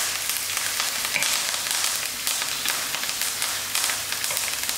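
Onion, curry leaves, whole spices and ginger-garlic sizzling in hot oil in a pan while being stirred. A steady hiss runs throughout, dotted with many small crackles.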